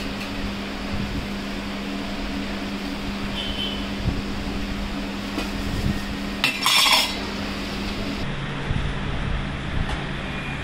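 Steel spoons and ladles clinking and scraping against steel pots and a plate, over a steady low hum. The loudest metal clatter comes a little past the middle.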